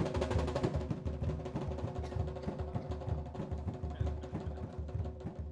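Garifuna hand drums, the primero and segundo, playing a hüngühüngü rhythm: a quick, steady run of strokes.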